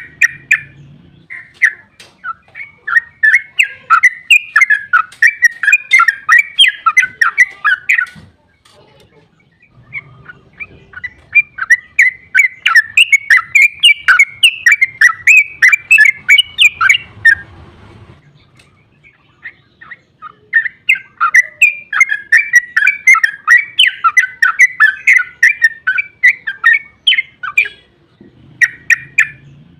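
Yellow-vented bulbul (trucuk) singing long, rapid chattering song phrases, three runs of about seven seconds each with short pauses between, and a brief burst near the end.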